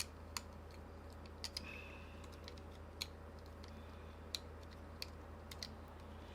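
Sparse light clicks and taps of small plastic PS5 DualSense controller parts being handled and fitted together, about eight over a few seconds, over a steady low hum.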